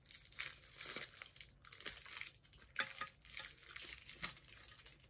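Plastic candy wrapper crinkling as it is pulled open and a red candy strip is drawn out of it: a run of irregular crackles.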